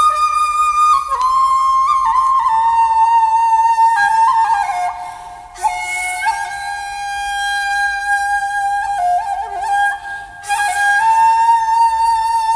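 Background music: a flute playing a slow melody of long held notes, with two short breaks about five and ten seconds in.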